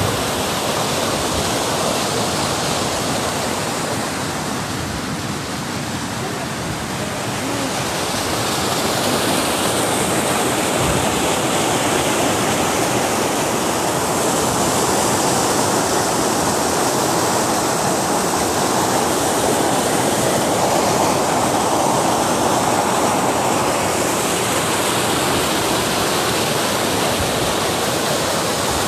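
Muddy rainwater runoff rushing and cascading over rocks in a fast torrent, a loud steady rushing noise that grows a little louder about eight seconds in.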